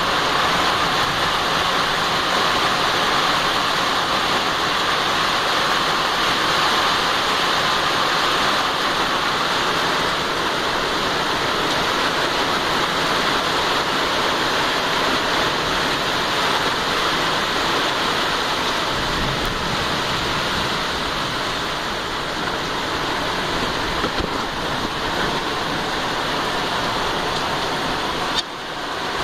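Rain falling steadily, an even hiss with no break, dipping briefly near the end.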